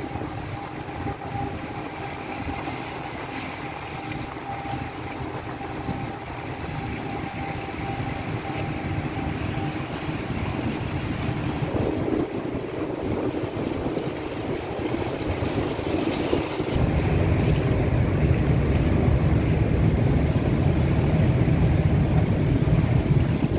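A large ship passing close, its engines giving a steady hum over water washing along the hull. Two-thirds of the way through, a heavier low rumble comes in suddenly, and the sound gets louder.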